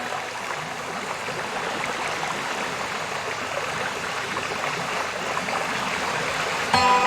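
Steady rush of a waterfall, an even noise of falling water. Music with long held tones comes in suddenly near the end.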